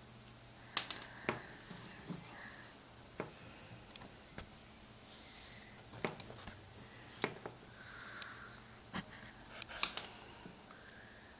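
Small screwdriver driving tiny screws back into a laptop screen's side bracket: scattered light clicks and ticks of metal on metal and plastic, about eight over ten seconds.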